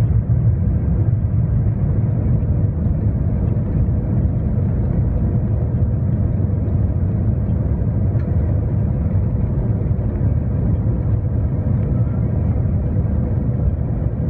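Steady low rumble of an Airbus A350 heard inside the passenger cabin during landing: engine and airflow noise with a faint steady hum above it.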